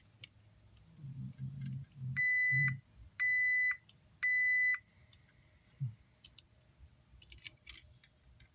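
Three electronic beeps, each a steady high tone about half a second long and about a second apart. A few sharp clicks follow near the end.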